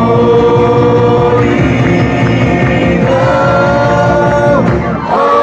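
Live rock band playing: a singer holding long notes over electric guitars, keyboard and drums. The music drops briefly about five seconds in.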